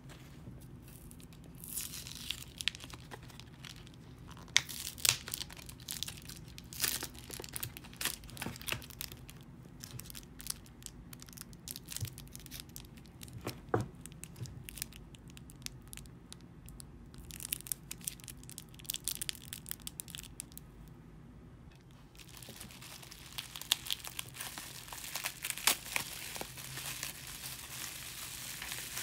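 Clear plastic blister packaging being peeled and torn open in scattered crinkles and snaps, then bubble wrap being unwrapped and crinkled, denser and more continuous from about two-thirds of the way through.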